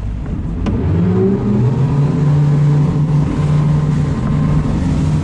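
Twin Yamaha 300 hp V6 outboard motors opened up for hard acceleration. The engine note climbs over about a second, then holds steady at high revs as the RIB gets up to speed.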